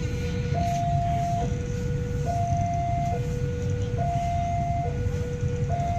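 Indonesian railroad level-crossing warning alarm sounding its two-tone signal, a higher and a lower tone alternating a little under once a second, with a steady low rumble underneath. The alarm signals a train approaching the crossing.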